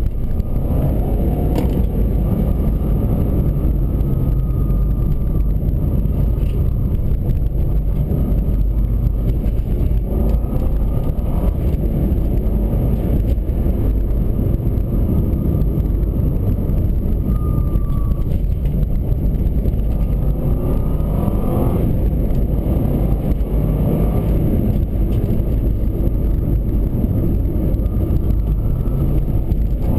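Interior sound of a 2003 Subaru Forester's flat-four engine and tyres while driving, a steady low rumble with road noise. The engine note rises and falls a few times as the car accelerates and eases off through the bends.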